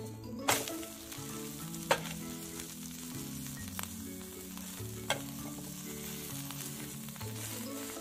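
Egg omelette frying in mustard oil in a pan, with a steady sizzle. A perforated steel spatula clicks sharply against the pan three times as the omelette is folded and pressed.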